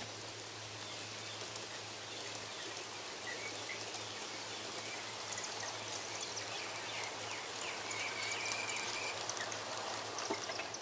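Steady outdoor hiss with a low hum underneath, and birds chirping from about three seconds in, one holding a high note for about a second and a half.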